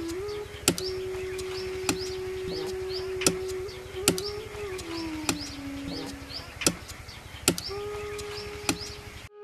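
Sickle blade chopping into the bark of a palas (Butea monosperma) tree, about eight sharp strikes roughly a second apart: the trunk being notched to tap it for gum. Behind it, a steady tone that wavers in pitch and high chirps repeating about twice a second.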